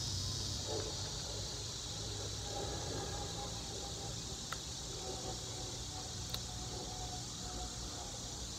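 Steady high-pitched chorus of insects chirring outdoors, with a couple of faint clicks partway through.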